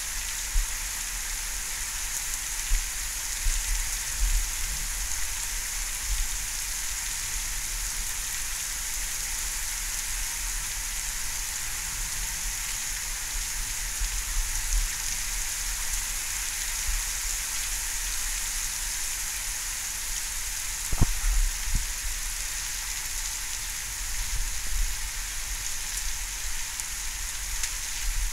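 Steady rain falling during a thunderstorm, an even hiss throughout, with one sharp tap about three quarters of the way through.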